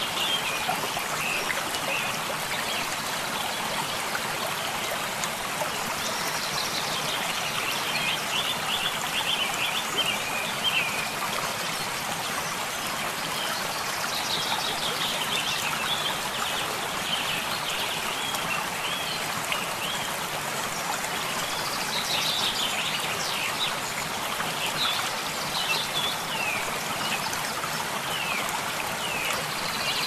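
Water of a stream running steadily, with birds chirping on top in several spells of quick, high, falling notes.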